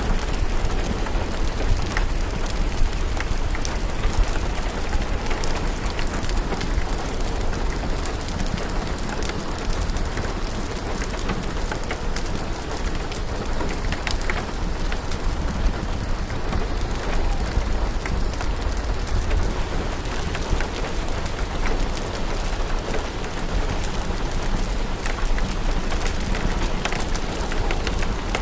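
Steady rain mixed with a crackling fireplace fire: an even hiss with scattered sharp pops and a low rumble underneath.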